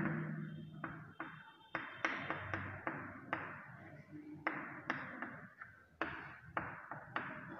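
Chalk tapping and scratching on a chalkboard as a word is written out: a string of short, sharp strokes, a few each second, with brief pauses between them.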